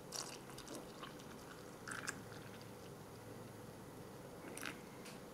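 Cold water poured from a jug into a mug of powdered cocoa mix: faint trickling and splashing, with a few small splashes.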